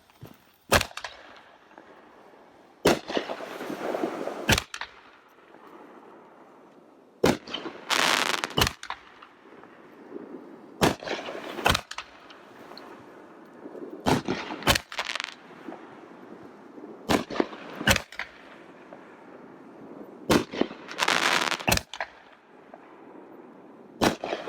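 Fireworks going off: sharp bangs every couple of seconds, some followed by a crackling shower and a fading rumble of echo.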